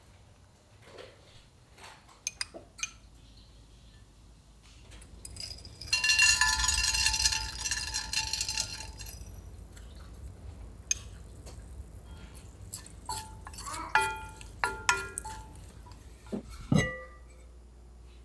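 Kitchen clatter of spoons and dishes: light clinks in the first few seconds, a louder stretch about three seconds long starting around six seconds in, then ceramic dishes clinking and ringing briefly near the end.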